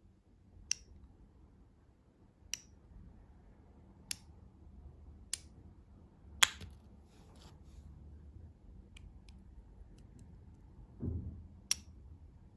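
Sharp, separate clicks and snaps from candy packaging being handled and opened, about seven spaced a second or two apart, with a short low thump just before the last one.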